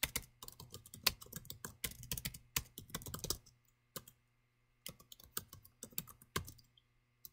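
Computer keyboard typing: irregular keystrokes in quick runs, with a break around the middle, dying away near the end.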